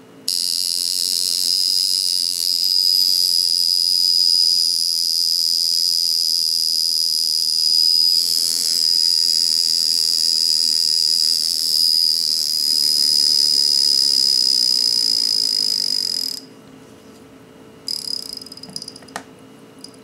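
Vintage Sekonda mechanical alarm wristwatch going off: a steady, high-pitched buzz that starts sharply, runs for about sixteen seconds and stops suddenly, followed by a short final buzz near the end.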